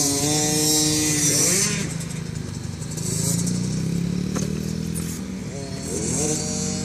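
Pit bike engines running and revving, their pitch rising and falling.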